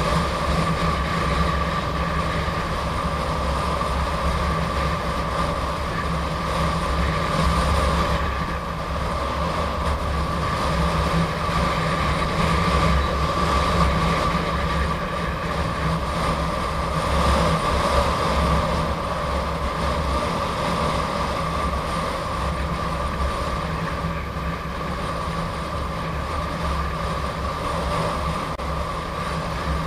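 Gotway MSP electric unicycle ridden at speed: a steady high whine over a fluctuating low rumble, unbroken throughout.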